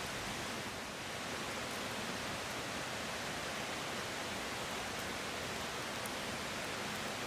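A river running steadily, a constant even rush of water with a few faint clicks over it.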